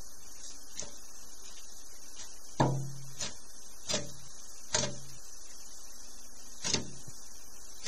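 Irregular knocks on a clear plastic tub as a young quince monitor lizard works a mouse in its jaws against the floor and wall, about five of them, the loudest about two and a half seconds in, over a steady hiss.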